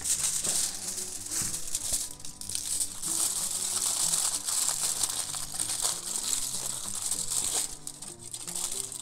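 Aluminium foil crinkling and crackling as it is crumpled and wrapped by hand around air layers on a juniper branch, over quiet background music.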